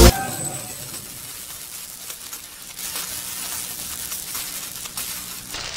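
Faint crackling hiss of an electric-spark sound effect, with a low steady hum beneath it.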